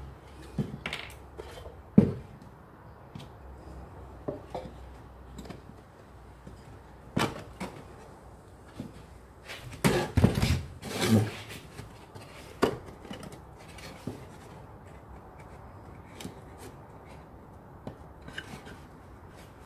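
Scattered knocks and clatter of hands handling a wooden box and a cordless drill on a workbench, with a sharp knock about two seconds in and a burst of louder knocks around ten to eleven seconds in.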